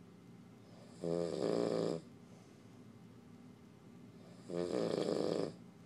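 Snoring: two snores, each about a second long, about three and a half seconds apart.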